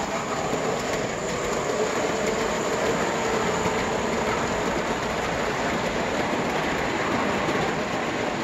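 Vintage 1937 O scale Pennsylvania GG1 electric model locomotive, cast bronze, running steadily while pulling cast-aluminum passenger cars on outside-third-rail track: a continuous rolling noise of metal wheels on the rails.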